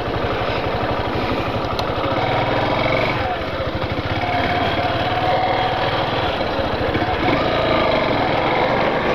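Yamaha Factor 150's single-cylinder engine running as the motorcycle pulls away from a stop and rides slowly along a town street. The engine note dips briefly about three seconds in, then rises again as it pulls.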